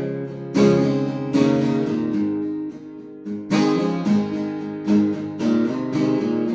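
Acoustic guitar strumming chords between sung lines, a strong downstroke about every second or so.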